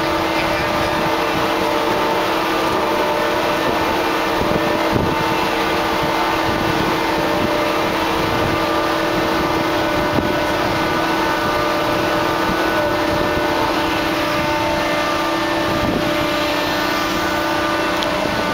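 Steady machinery drone with several fixed tones from ship's deck machinery beside a freefall lifeboat's launching davit, with a faint knock about five seconds in and another about ten seconds in.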